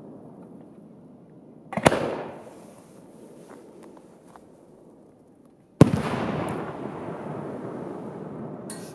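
Aerial fireworks exploding twice, about four seconds apart: each a sharp bang followed by a rumbling echo that dies away over a second or more, the second bang the louder and longer.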